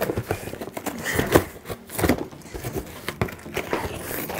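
A knife slitting the packing tape and cardboard of a shipping box, a run of irregular short scrapes and rips.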